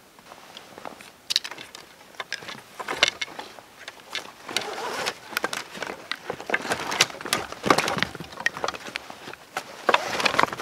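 Dry sticks of firewood knocking and scraping against each other as they are handled and bound with a green nylon webbing strap, a quick irregular run of sharp clacks and rustling that starts about a second in.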